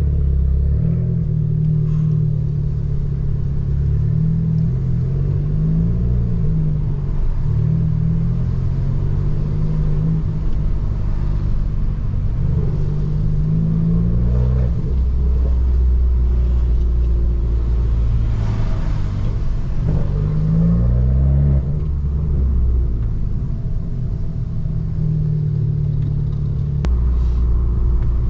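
Abarth 595 Turismo's turbocharged 1.4-litre four-cylinder running through its cat-back exhaust while driving, the revs climbing and dropping back several times through gear changes.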